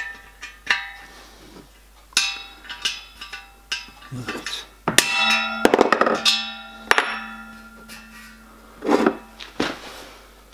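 Small steel bracket clinking and clanking against the studs and copper shell of a model locomotive boiler as it is handled, lifted off and set down, each knock ringing on briefly. The loudest clatter comes about five to seven seconds in.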